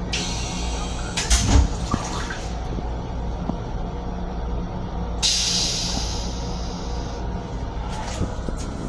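Stainless steel toilet in a Metro-North M7 railcar flushing: a hiss of water from the start with a thump about a second and a half in, then a second hiss about five seconds in that fades away over two seconds. A steady low hum of the moving car runs underneath.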